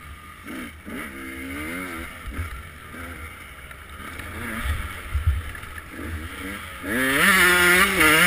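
KTM EXC 125 two-stroke single-cylinder dirt bike engine revving up and down as it is ridden. It is fairly quiet at first, then gets much louder about seven seconds in as the throttle opens and it accelerates, with a low rumble underneath.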